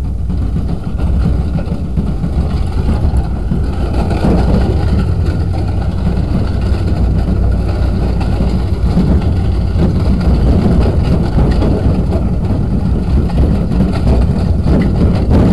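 Pickup truck running steadily while towing a lawnmower behind it: a continuous low engine and road rumble.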